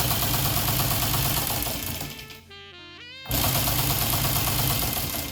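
Teletype Model 15's electric motor switched on by a relay and running with a loud, steady mechanical whir, winding down after about two seconds, then switched on again about three seconds in and winding down near the end.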